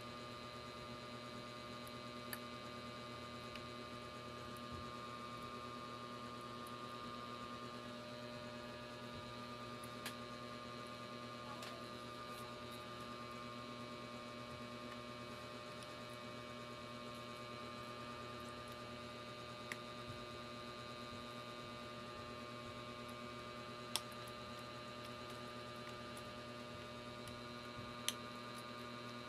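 Steady electrical hum made of several fixed tones, broken by a few short sharp clicks, the loudest two near the end.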